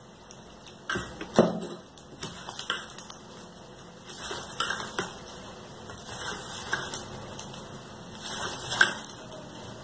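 Gram flour being kneaded by hand into a stiff dough in a stainless steel bowl: irregular bursts of scraping and clicking of hand and dough against the steel. About a second in there are a couple of sharp knocks.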